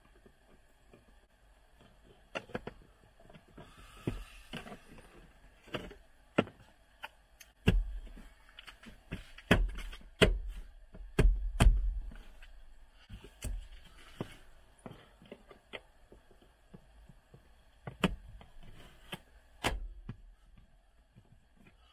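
Plastic interior trim panels being handled and pressed back into place: irregular sharp clicks and knocks, loudest in a cluster about eight to twelve seconds in, with a couple of brief scraping spells.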